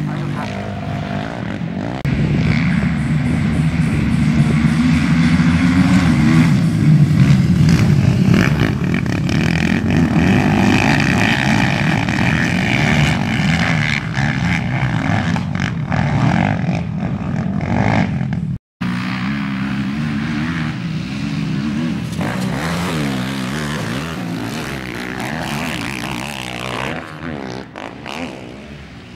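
Several race quads' engines revving hard on a dirt track, pitch rising and falling as riders open and close the throttle through the turns and jumps. The sound drops out for an instant about two-thirds of the way in.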